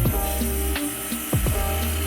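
Background music with a steady beat: deep drum hits that drop in pitch over held bass notes.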